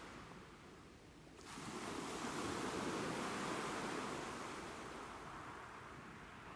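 Ocean surf: a wave breaks with a sudden rush of noise about a second and a half in, then slowly washes back and fades.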